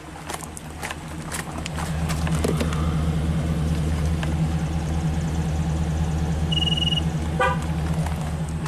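Truck engine idling with a steady low drone, with footsteps on gravel. A short electronic beep comes about six and a half seconds in, then a quick horn chirp, the truck's signal that a tire-pressure sensor has been learned during the TPMS relearn.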